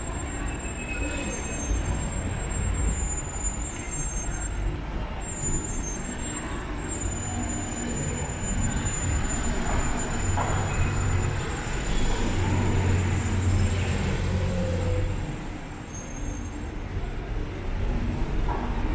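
City street traffic: a steady wash of road noise with vehicle engines, a heavy engine hum growing loudest about twelve seconds in and fading away around sixteen seconds.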